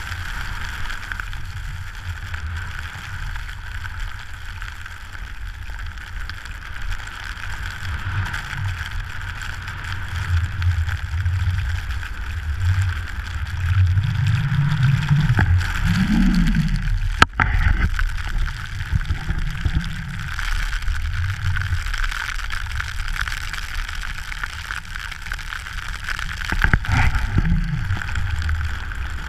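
Wind rumbling on the camera microphone while skiing downhill through soft snow, over a steady hiss of skis sliding on the snow, swelling louder for a few seconds in the middle. A single sharp knock about seventeen seconds in.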